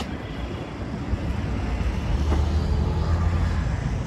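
City road traffic: a steady low engine rumble from passing vehicles that grows louder about halfway through.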